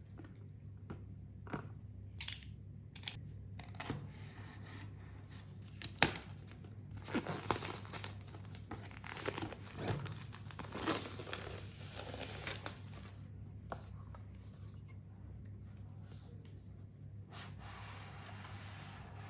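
Packaging being handled: a few sharp clicks and a loud snap about six seconds in, then several seconds of wrapping crinkling and tearing.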